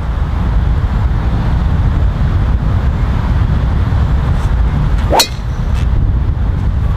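Strong wind buffeting the microphone, with one sharp crack about five seconds in: a driver striking a golf ball.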